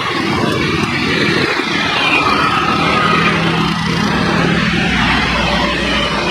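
Jet airliner's engines, a loud continuous noise with a steady low hum underneath.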